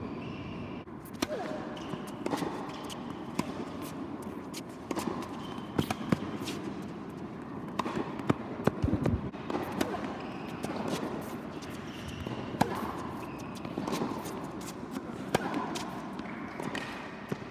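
Tennis rally: a ball struck by rackets and bouncing on the court, giving sharp hits about every second or so, with players' footsteps and shoe scuffs.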